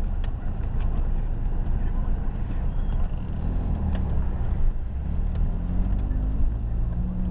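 Car engine and road rumble heard from inside the cabin as the car pulls away, the engine note climbing steadily in pitch over the last couple of seconds as it accelerates.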